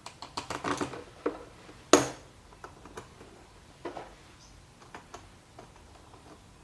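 Small metal hardware clicking and clinking as screws, lock washers and nuts are fitted by hand to fasten a bracket and back plate, with a cluster of clicks in the first second and one sharper knock about two seconds in, then a few light ticks.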